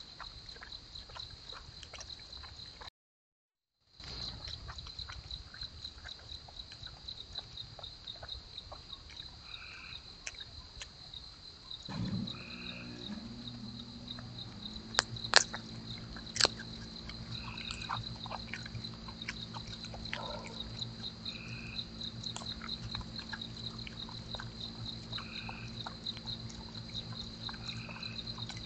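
Night chorus of frogs and insects: frogs call every few seconds over a steady, fast-pulsing high-pitched insect trill. About halfway through, a low steady hum with several tones joins in, and a few sharp clicks stand out a few seconds later.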